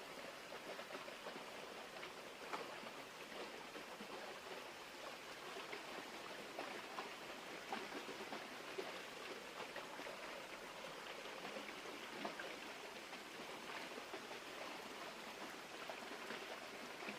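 Creek water running steadily, with small splashes and ticks scattered through it.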